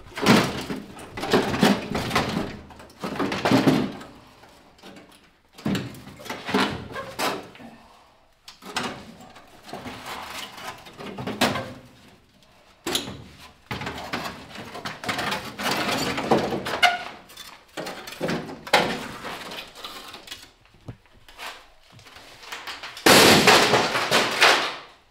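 Sheet-steel floor pan clanking and scraping against the car's floor and body as it is fitted into the footwell, in a series of irregular knocks and rattles, with a longer, louder stretch of metal noise near the end.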